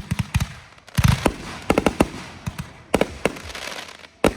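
Consumer fireworks going off in an irregular string of sharp bangs and pops. There is a heavier, deeper boom about a second in and quick clusters of cracks after it.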